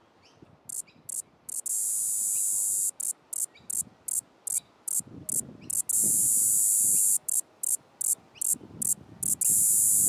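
Australian cicada singing: a loud, high buzz that starts about a second in and switches between long steady stretches of a second or more and quick chopped pulses about three a second.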